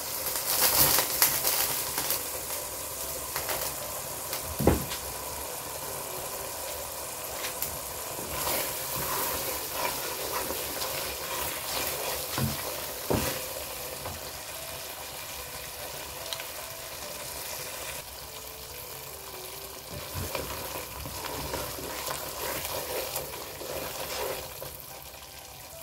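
Thick tomato-and-vegetable masala sizzling in a nonstick pot as a wooden spatula stirs it. The sizzle is louder for the first two seconds, and the spatula knocks against the pot a few times. The vegetables have cooked through after five minutes under the lid.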